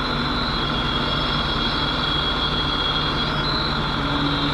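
A 4x4 vehicle running steadily, with a thin, steady high whine over the engine noise.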